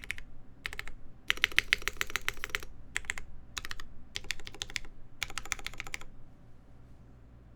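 Typing on a Mode SixtyFive mechanical keyboard with lubed Cherry MX Black linear switches, a POM half plate and JTK keycaps, stack-mounted: fast keystrokes in short runs with brief gaps, stopping about six seconds in.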